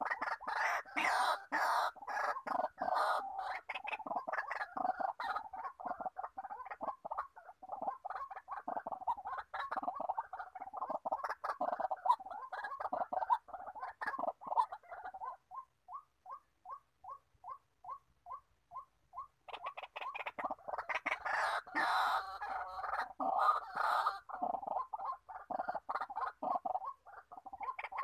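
Male white-breasted waterhen calling: a fast, dense run of harsh croaking notes that about halfway through slows to a series of single even notes, about three a second, before the rapid croaking starts again.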